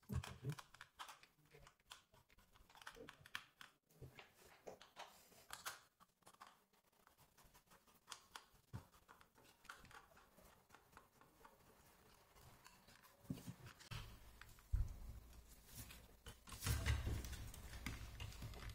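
Faint scattered clicks and taps of a small screwdriver and hands working on a plastic toy RC car chassis as its screws are undone and parts are handled. Over the last few seconds the handling gets louder, with rubbing and knocking of the plastic body.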